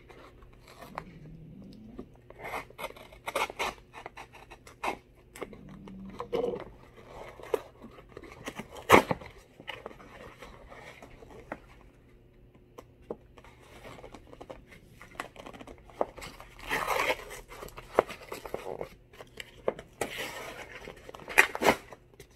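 Small knife slitting open a USPS Priority Mail envelope: scratching and scraping of the blade on the mailer, with a sharp click about nine seconds in, then paper rustling and tearing as the envelope is pulled open near the end.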